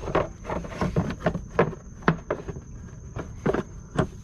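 Irregular clicks and knocks of the plastic tail light housing and bulb socket being handled, over a steady thin high whine.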